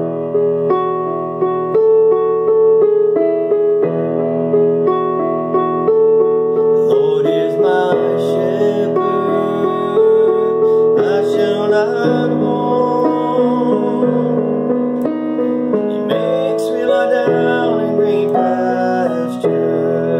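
Piano music opening a song, with steady notes and chords that fill out with more high notes about seven seconds in.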